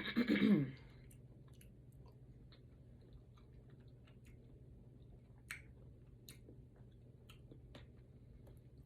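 A person quietly chewing food close to the microphone, with scattered faint mouth clicks and a few sharper clicks about halfway through.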